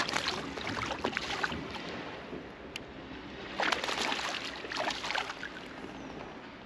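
Hooked black bass thrashing at the water's surface, making two bouts of splashing: one at the start, lasting about a second and a half, and a louder one a little past the middle.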